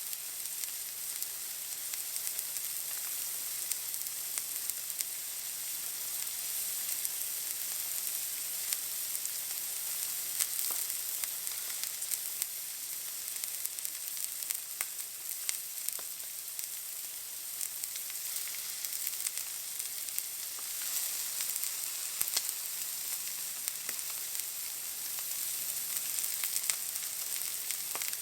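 Steak searing in a hot pan: a steady high sizzle scattered with small crackles and pops of spitting fat.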